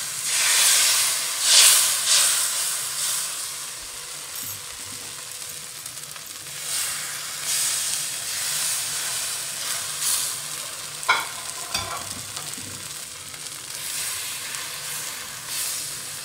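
Thin rice-and-Cassia-tora-leaf neer dosa batter sizzling as it is ladled onto a hot oiled nonstick pan. The hiss swells with each pour, loudest in the first couple of seconds, then settles to a steadier sizzle. A few light clicks come about two-thirds of the way through.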